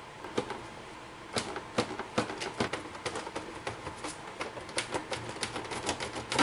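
Hand tools working on metal: a run of sharp, irregular clicks and knocks at several a second, starting about a third of a second in, over a steady background hiss.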